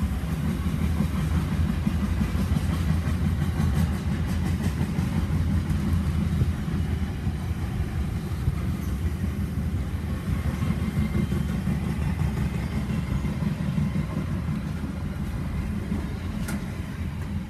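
Steady low rumble of a car driving, heard from inside its cabin, mixed with the rumble of an SCT freight train's wagons rolling alongside.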